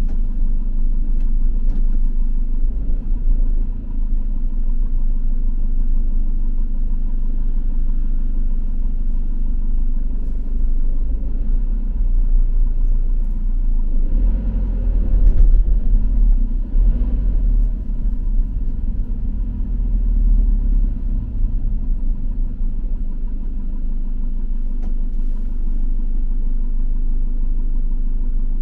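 Steady low rumble of a delivery vehicle's engine and tyres, heard from inside the cab while driving. It swells louder for a few seconds about halfway through.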